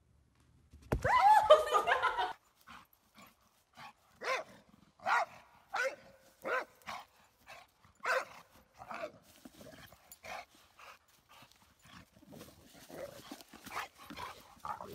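Dog barking: a loud flurry of barks about a second in, then single short barks roughly once a second, growing fainter near the end.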